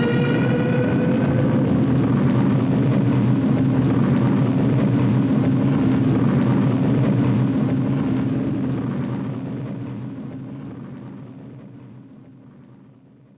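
A sound effect from the original Star Trek series: a steady, dense low rumble with a faint rising tone fading out in the first couple of seconds. It dies away slowly over the last five seconds.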